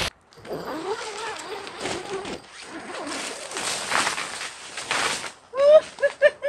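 Snow being brushed and knocked off tent fabric, with rustling and shuffling in snow. Near the end comes a man's voice: a few short exclamations and then a longer drawn-out one.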